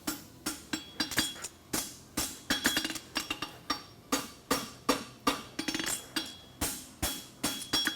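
Hand hammer striking an aluminum bar shoe on an anvil, about two to three ringing blows a second, as the shoe's ends are scarfed and peeled down over the anvil's edge.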